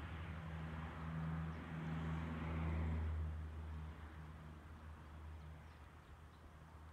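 A low engine hum, like a vehicle passing at a distance. It swells to its loudest about three seconds in, then fades away.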